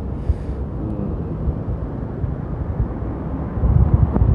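Street traffic: the steady low rumble of a car driving past close by, with general road noise.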